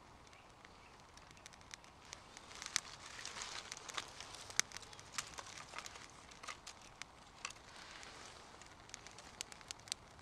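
Small fire of dry twig kindling crackling, with many irregular sharp pops that are busiest a few seconds in, and twigs rustling as they are pushed into the flame.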